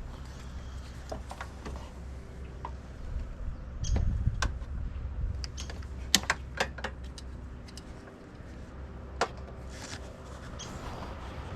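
Scattered sharp clicks and light taps of hand tools and parts being handled, with a thud about four seconds in and a cluster of clicks past the middle, over a steady low hum.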